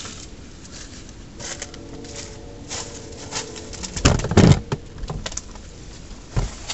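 Footsteps crackling through dry leaf litter and thin snow, then loud bumps and rustling about four seconds in as the camera is grabbed and handled.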